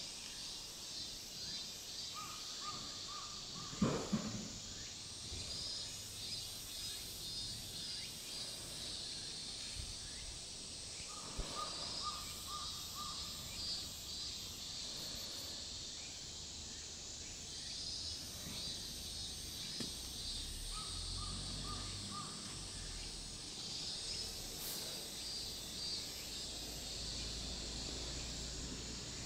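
Outdoor calls of wild animals: a fast-pulsing high call repeats every five or six seconds, and a lower series of short notes comes a few times. There is a single knock about four seconds in.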